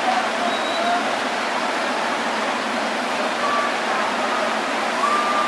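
Steady murmur of a baseball stadium crowd, with a few faint whistle-like tones over it and a longer held tone starting near the end.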